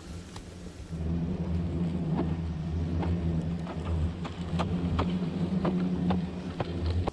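Swarm of Asian hornets buzzing loudly at the mouth of their ground nest, a steady low drone. It is dotted with many sharp ticks, like hornets striking the camera and suits.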